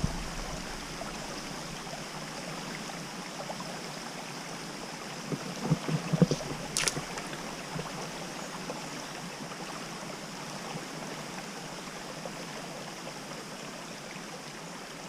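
Water running steadily, with a few light knocks and a sharp click about six to seven seconds in.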